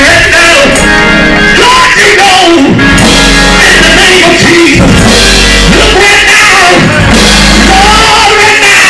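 Loud music with a singing voice over a full band.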